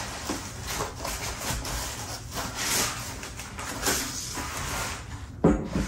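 Foam packing inserts and cardboard boxes being handled during unpacking: irregular soft scraping and rustling with light knocks.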